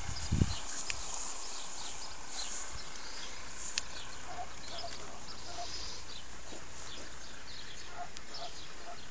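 Outdoor garden ambience: faint, scattered bird chirps and a few short distant calls over a steady low rumble, with one soft thump just after the start.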